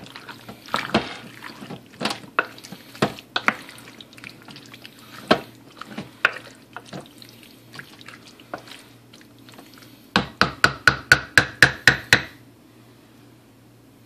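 A spoon stirring thick, chunky chicken pot pie filling in a ceramic crock pot insert: irregular scrapes and clicks against the crock. Near the end comes a quick run of about ten sharp, ringing knocks, some five a second, before it goes quiet apart from a low hum.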